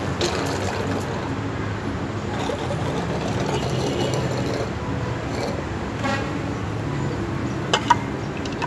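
A child blowing into a water-filled rubber hose through its mouthpiece, forcing a spurt of water out the far end; the blowing and water noise runs steadily, with two short clicks near the end.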